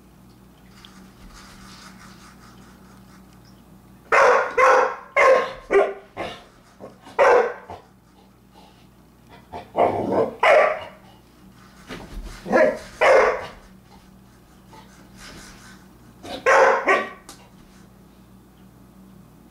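A dog barking loudly at its ball toy in play: about a dozen short barks in clusters, beginning about four seconds in.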